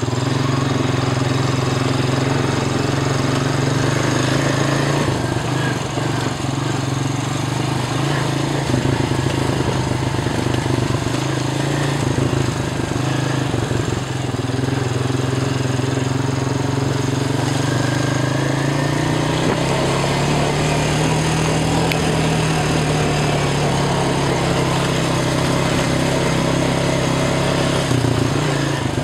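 Four-wheeler (ATV) engine running steadily under way, its pitch drifting gently up and down with the throttle.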